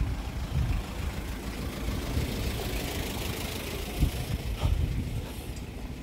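A small light truck drives past with its engine running, the tyre and engine noise swelling toward the middle and then fading as it passes.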